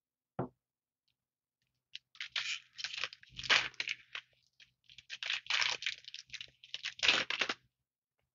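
A single tap, then the foil wrapper of a Magic: The Gathering booster pack being torn open and crinkled in a quick run of crackling bursts lasting several seconds.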